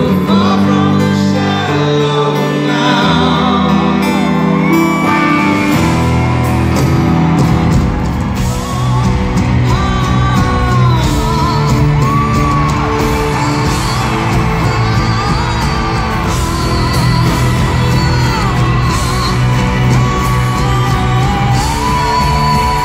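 Live concert music heard from within the audience: a singer over piano chords, with the full band and drums filling in about six seconds in, and scattered whoops from the crowd.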